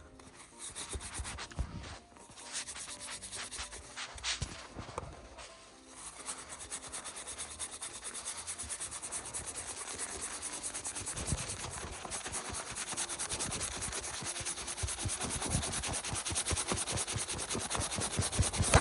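Leather of a ZETT first baseman's mitt being rubbed and buffed, working in freshly applied conditioner on dry leather. A few seconds of irregular handling give way, about six seconds in, to fast, even back-and-forth rubbing strokes that carry on steadily.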